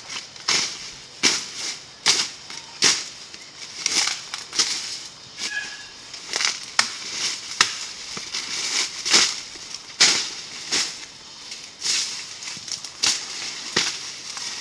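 Chopping strokes of a bladed tool through dry palm fronds and brush, a crisp crunching stroke a little more than once a second, with dry leaves crackling and rustling between the strokes.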